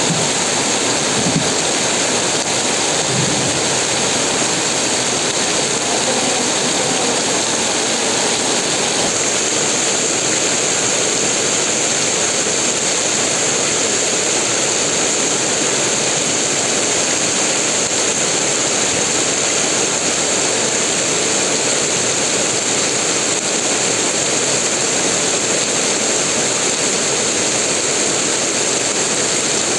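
Heavy rain pouring down in a dense, steady hiss, like a waterfall.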